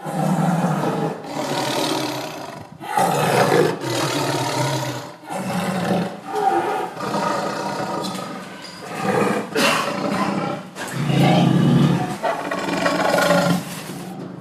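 Tiger roaring and snarling, a run of loud rough roars one after another with short breaks between them.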